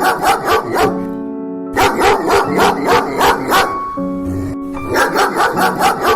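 A dog barking in three quick runs of rapid barks, about five a second, over steady background music.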